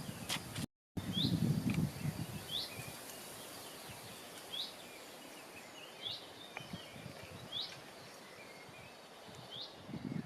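A bird calling over and over in the woods, one short high chirp that drops in pitch, about every one to two seconds, six times in all. A louder low rustle sounds in the first couple of seconds.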